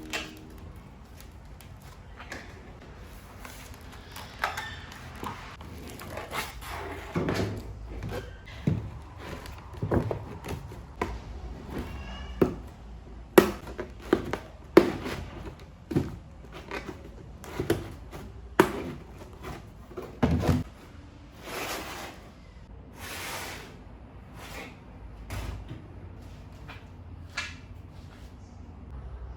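Household objects being handled and set down: an irregular series of knocks, thuds and clatters, with a few brief rustles.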